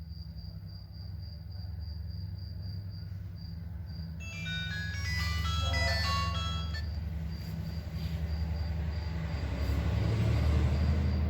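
A short electronic jingle of quick stepping notes plays for about three seconds, starting about four seconds in, over a steady low engine hum that grows louder near the end. A faint high chirp pulses evenly throughout.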